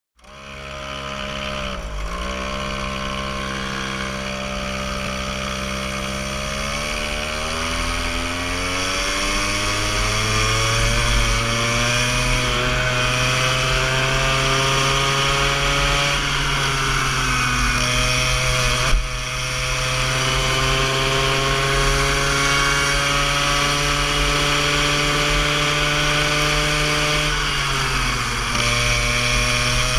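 Go-kart engine heard from the driver's seat. It drops briefly near the start, then its pitch climbs steadily as the kart accelerates down the straight and holds high. It falls sharply near the end as the kart slows for a corner, with a single knock about two-thirds of the way through.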